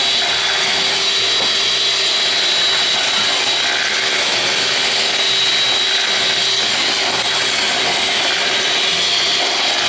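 Electric hand mixer running steadily at full speed, its twin whisk beaters whipping eggs and sugar in a bowl, with a steady motor whine.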